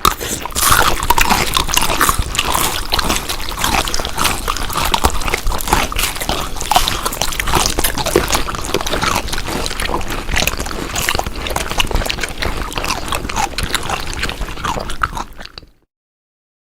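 Wet, close-up chewing and smacking of food, a dense run of small clicks and squelches that stops suddenly about a second before the end.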